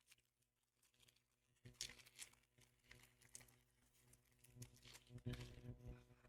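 Faint crinkling and rustling of foil booster-pack wrappers and trading cards being handled, in short scattered crackles.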